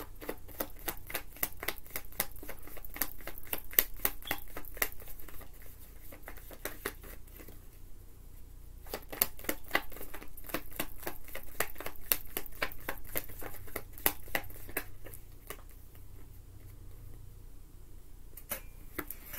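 Tarot deck being shuffled by hand: fast runs of crisp card clicks and flaps, in two main bouts with a pause of a few seconds between them.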